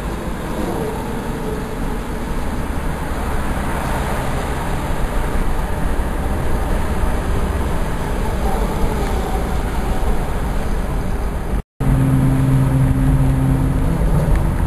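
Road noise inside a car cabin at highway speed: a steady low rumble with tyre hiss. About three-quarters of the way through, the sound cuts out for a moment, then comes back with steady low tones over the rumble.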